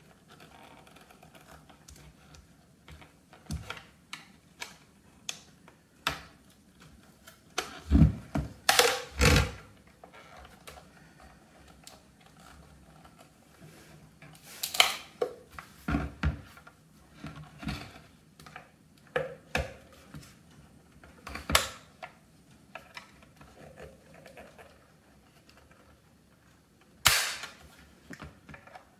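Small screwdriver prying at the plastic snap-on cover of a ResMed Escape 2 CPAP machine: scattered sharp plastic clicks, taps and knocks as the blade works at the clips, with a few louder snaps and knocks about eight to nine seconds in, in the middle and near the end.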